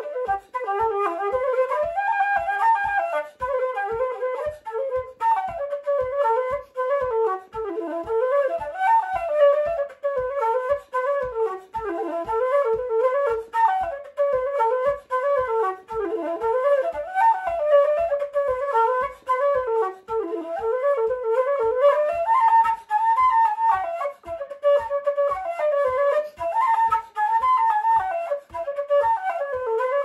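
Wooden keyed simple-system flute playing an Irish traditional tune solo: a fast, ornamented melody of quick runs, broken by short breaths between phrases. Faint low thuds keep the beat about twice a second.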